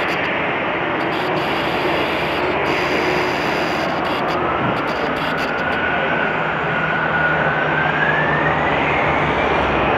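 Airbus A320 jet engines running up for takeoff: a steady jet noise with a whine that climbs in pitch from about four seconds in as the engines spool up.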